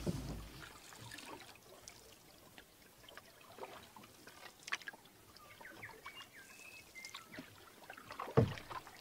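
Canoe being paddled on calm water: soft paddle strokes with water trickling off the blade and small clicks and splashes. A few faint high wavering tones come in the middle, and a single loud knock near the end.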